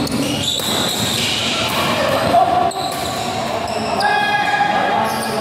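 Badminton doubles rally in a large hall: rackets striking the shuttlecock among the players' footwork on the court.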